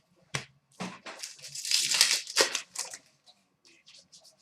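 Foil wrapper of a hockey card pack being torn open and crinkled: a couple of light clicks, then about a second of loud crackling tearing that fades into small rustles.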